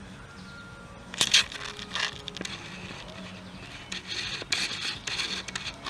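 Several short scraping and rustling noises over a faint steady low hum.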